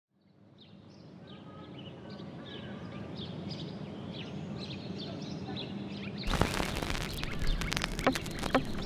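Birds chirping over a low steady hum, fading in. About six seconds in, a sudden loud clattering of rapid clicks and knocks cuts in.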